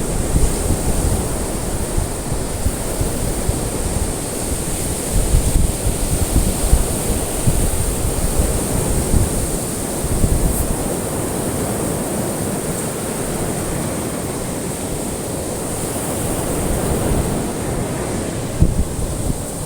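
Ocean surf: waves breaking and washing in a continuous wash, swelling and easing slightly in loudness.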